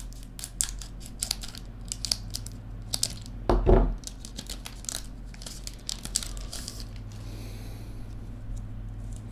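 Trading cards and a foil pack wrapper being handled close up: the wrapper crinkles and the cards make many short flicks and clicks, with one louder thump about three and a half seconds in. A steady low hum runs underneath.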